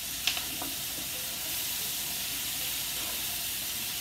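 Carrots, fingerling potatoes and onion sizzling steadily as they fry in a cast iron skillet. One sharp knock, likely the wooden spatula against the pan, comes about a third of a second in.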